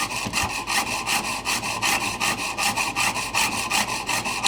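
Piercing saw with a very fine 32-teeth-per-inch blade sawing through brass plate in quick, even strokes.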